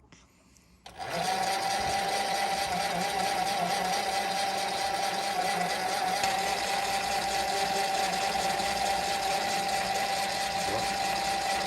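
Mini lathe switched on about a second in and running at steady speed with a high, even motor whine, turning a groove into a bullet-shaped dust cap.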